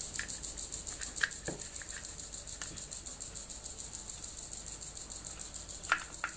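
Scattered small clicks and taps of a screwdriver working the M3 bolts that fasten the coax connector to a plastic balun case. Under them runs a steady, fast-pulsing high-pitched hiss.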